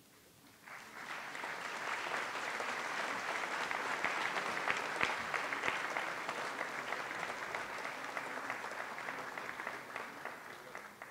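Audience applauding: many hands clapping, starting about a second in, building to a steady level and fading away near the end.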